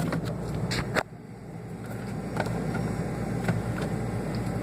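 A few light clicks and knocks from food containers being handled in a refrigerator, the sharpest about a second in, over a steady low hum.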